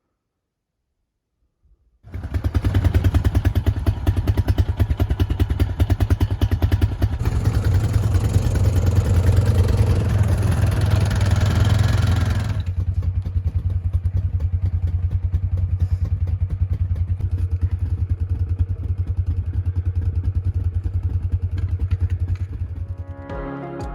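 Vehicle engine running with a rapid, even firing beat, starting suddenly about two seconds in. It runs harder for about ten seconds, then settles to a lighter sound, and music comes in near the end.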